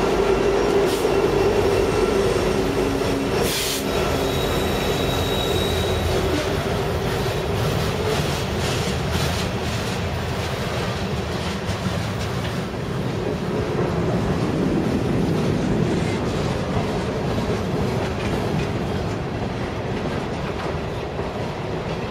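KCS EMD SD70ACe diesel locomotive passing, its engine hum fading within the first six seconds. Then a freight train's cars roll by, wheels clicking over rail joints, with a brief high wheel squeal about five seconds in.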